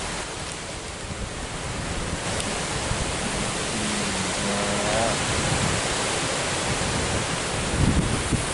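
Strong wind rushing over the microphone, a steady loud noise. A faint brief tone rises and falls about halfway through.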